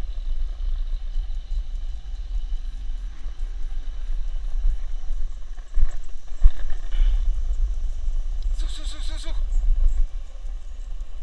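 Skateboard wheels rolling on asphalt, a steady low rumble, with two sharp knocks about six seconds in as the wheels cross joints and a drain cover in the road.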